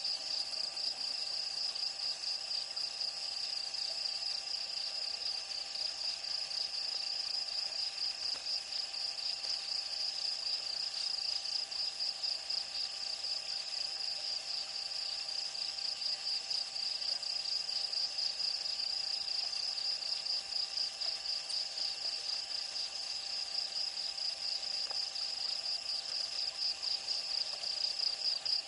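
Crickets trilling in a steady night chorus: a high, fast-pulsing trill that never lets up, with a few fainter steady tones beneath it.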